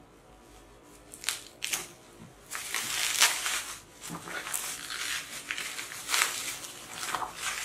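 Plastic bubble wrap crinkling and rustling as it is handled and pulled from around products in a cardboard box: a couple of sharp crinkles in the first two seconds, then near-continuous crinkling.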